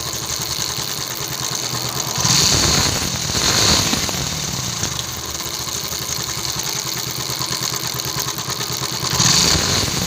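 TVS XL100 Heavy Duty moped's single-cylinder four-stroke engine running, its note swelling louder about two seconds in, again near four seconds and near the end. No clutch rattle is meant to be heard now that the engine oil has been refilled.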